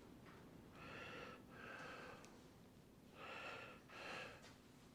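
A man breathing heavily close to the microphone: two slow breaths, each a soft hissy in-breath followed by an out-breath.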